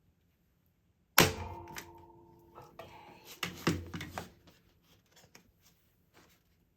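A hand staple gun firing a staple through canvas into a picture frame: a loud sharp snap with a brief metallic ring about a second in, followed by a few more knocks and clicks as the gun and canvas are handled.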